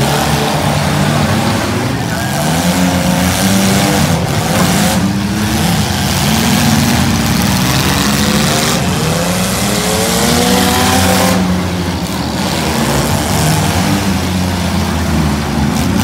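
Several six-cylinder demolition derby cars' engines running and revving at once, their revs rising and falling over one another.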